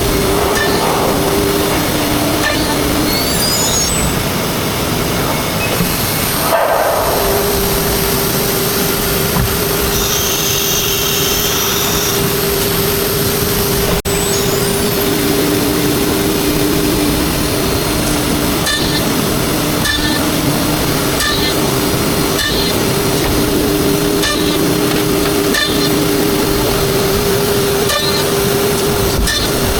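CNC router spindle running under load with a loud, steady rushing noise and a held tone that drops to a lower pitch for stretches, then returns. Light regular clicks come in during the second half.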